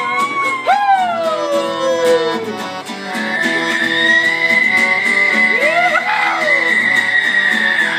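Live folk song with a plucked guitar and a high sliding melody line: falling glides in the first few seconds, then one long high note held from about three seconds in.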